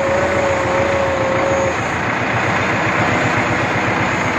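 HMT 5911 tractor's diesel engine running steadily while the rear hydraulic double-acting cylinder is worked from its lever. A steady whine over the engine stops just under two seconds in.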